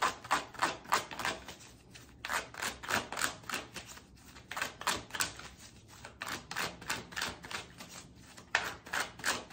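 A tarot deck being shuffled by hand: rapid papery clicks and flaps of the cards, about four or five a second, in runs with brief pauses.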